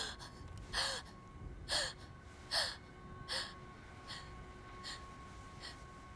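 A woman gasping for breath in short, ragged gasps about one a second, the first few with a sobbing catch in the voice, growing fainter.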